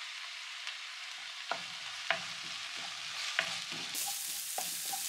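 Ginger sizzling in hot oil in a pan, with a spatula stirring and knocking against the pan from about a second and a half in. The sizzle turns louder and brighter near the end.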